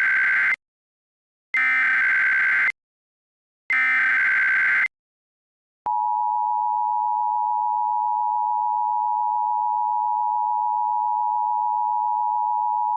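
Emergency Alert System tones: the SAME header's screechy data bursts, the tail of one and then two more, each about a second long with a second's gap, followed about six seconds in by the steady two-tone EAS attention signal, which holds to the end.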